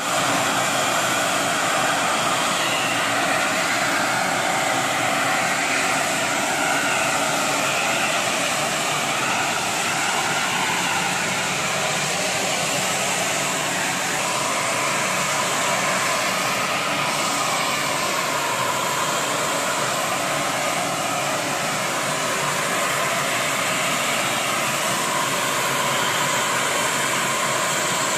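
High-pressure CNG escaping from a ruptured gas pipeline, a loud steady hiss that does not let up.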